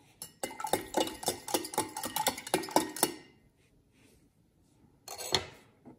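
A spoon stirring liquid in a glass, clinking rapidly against the sides for about three seconds, then one more clink near the end.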